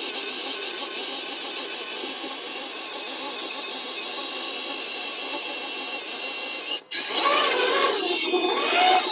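RC rock crawler's brushless outrunner motor and 3D-printed gearbox whining steadily under load as the truck climbs a steep ramp. About seven seconds in it cuts out for a moment, then comes back louder with its pitch sliding up and down, and stops.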